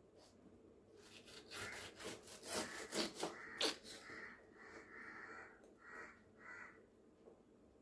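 Large kitchen knife slicing the rind off a whole pineapple, a series of scraping cuts through the tough skin, with sharp taps of the blade on the wooden cutting board about three seconds in, then a few softer rasping strokes.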